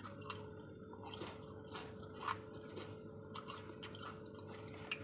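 Crisp homemade potato chips crunching as they are bitten and chewed: irregular sharp crunches, the loudest a little over two seconds in.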